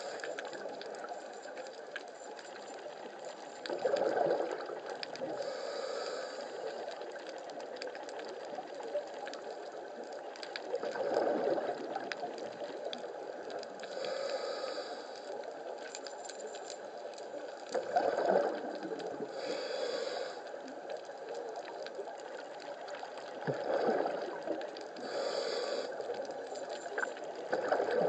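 Scuba diver's regulator breathing, heard through an underwater camera housing. A burst of exhaled bubbles comes about every six to seven seconds, each followed a second or two later by a hissing inhale, over a steady underwater hiss.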